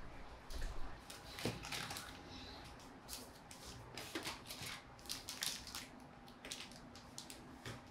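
Faint handling noise as plastic printer parts and a ream of paper are picked up and set down on a desk: scattered light knocks, clicks and rustles.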